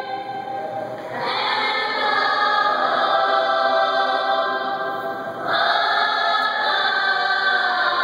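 Youth choir singing in long held chords, a new, louder phrase starting about a second in and again about five and a half seconds in.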